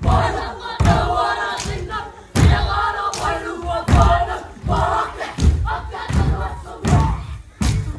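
Kapa haka group performing a haka: many voices chanting and shouting in unison, with heavy foot stamps on the stage about every second or so.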